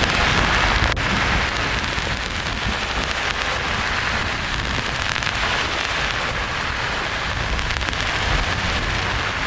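Steady, even hiss of white noise that sounds like heavy rain, with the low rumble of a thunder roll dying away over the first couple of seconds.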